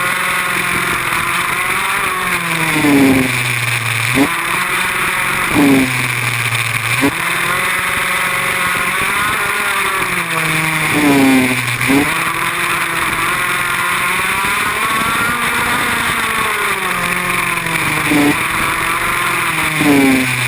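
Go-kart engine heard from the driver's seat, revving up and dropping off again every couple of seconds as the kart is driven around a tight track.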